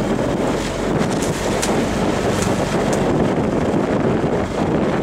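Wind buffeting the microphone on a small sailing boat motoring along, with a steady low engine drone and the wash of water under it. A few brief hissing splashes break through now and then.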